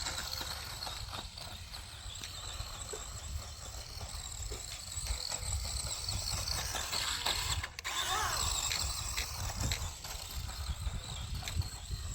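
A small electric 1/16-scale RC car driving over rough ground. Its motor and gears make a high whine that rises and falls with the throttle, over a rattle and rumble from the chassis and tyres, with a short break about eight seconds in.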